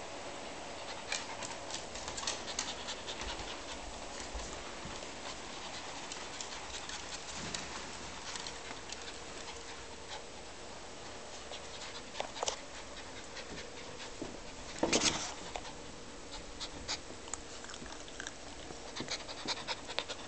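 Small dog panting rapidly in fear during a thunderstorm, with scattered light clicks and a brief louder noise about fifteen seconds in.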